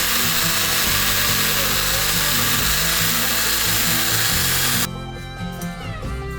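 Chainsaw cutting into a pumpkin with the tip of its bar, scooping out the edge of the opening: a loud, even hissing cut that stops abruptly about five seconds in, after which the saw runs on more quietly. Background music plays underneath.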